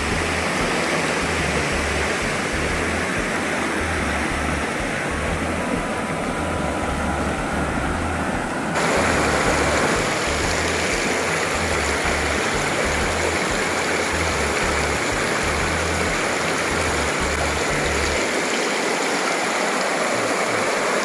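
Shallow river water rushing steadily over a stony riffle, louder from about nine seconds in. A low, pulsing bass line from background music runs underneath until near the end.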